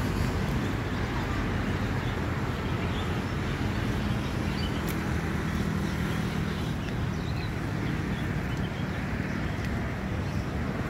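Steady low rumble of road traffic, with a few faint bird chirps high above it.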